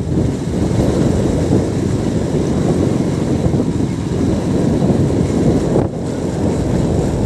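Steady low rumble of wind buffeting the phone's microphone, briefly easing about six seconds in.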